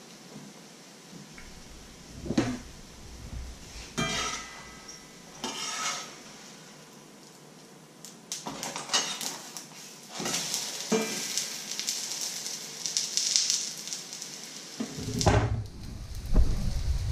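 A pancake frying in a pan, with a metal spatula clattering and scraping against the pan as it is worked loose and turned. Sizzling gets louder about ten seconds in, once the pancake is on its other side, and there are dull knocks near the end.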